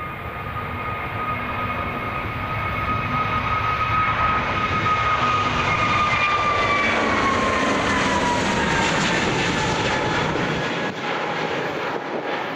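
Airbus A320-family airliner's two turbofan engines at take-off thrust as the jet rolls, lifts off and climbs past. A steady engine whine runs through the noise, dropping in pitch a little past halfway as the aircraft passes; loudest in the middle.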